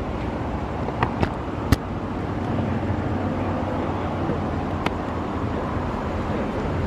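Steady rumble of an idling car, heard from inside the car, with a few sharp clicks: three about a second in and one near five seconds.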